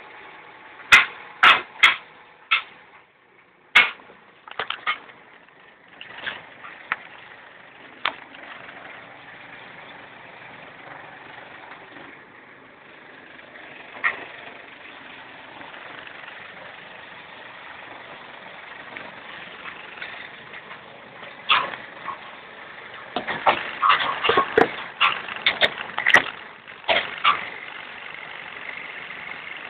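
Case 580G backhoe loader's engine running steadily, heard from the cab. Sharp knocks and clunks come over it: several in the first few seconds, a few single ones, and a dense run of them near the end.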